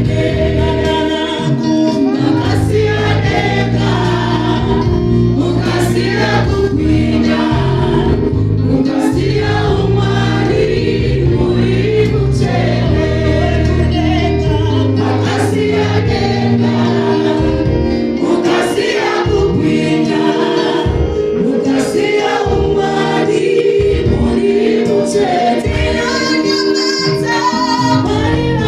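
Live gospel worship singing in Shona: a woman leads through a microphone and a small group sings with her, over sustained low backing tones and a regular beat.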